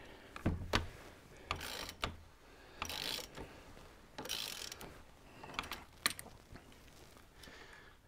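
Ratchet with a 3/4-inch hex bit clicking faintly in short, spaced bursts as a motorcycle fork cap is cranked loose, breaking it free.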